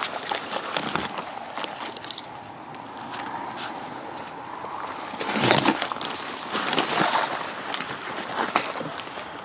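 Footsteps crunching on loose gravel, with the shaggy ghillie suit rustling through dry brush, as a person moves in a crouch and walks. The crunches and rustles come irregularly and are loudest about halfway through.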